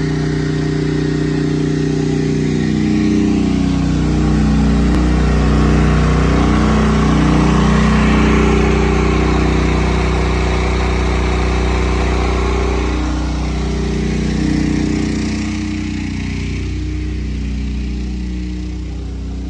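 Westinghouse WGen9500 portable generator's single-cylinder gas engine running steadily under load while powering a house's 5-ton central air conditioner, without sounding strained. It is loudest in the middle and grows somewhat quieter near the end.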